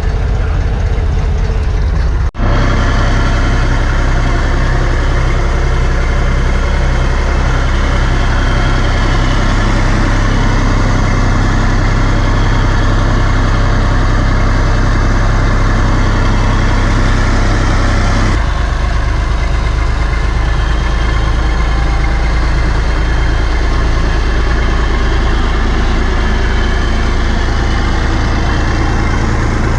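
Massey Ferguson 254S tractor's diesel engine running steadily, heard close up, with a brief break about two seconds in and a slight change in tone a little past halfway.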